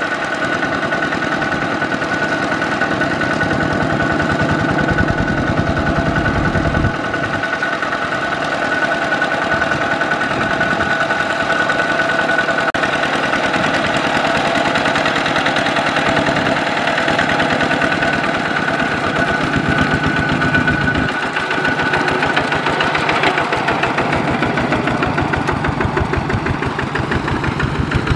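Kubota RT120 walking tractor's single-cylinder diesel engine running steadily with a rapid, even chug as it drives its cage wheels through paddy mud.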